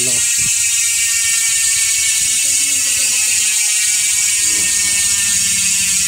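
Sword SWO2.3 rear freehub with six pawls, freewheeling as the rear wheel spins with the pedals still. Its pawls make a fast, steady ratcheting buzz.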